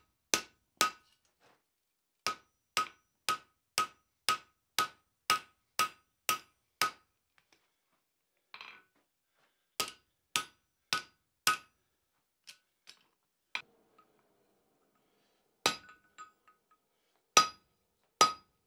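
Hand hammer striking a hot 5160 steel tomahawk head on the anvil, about two blows a second in runs with pauses between. Each blow gives a short ring, and there is a brief scrape midway. The blows are shaping and shortening the cutting edge of the blade.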